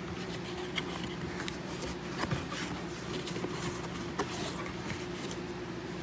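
Light rustling and a few faint taps of a cardboard box being opened by hand, over a steady low hum.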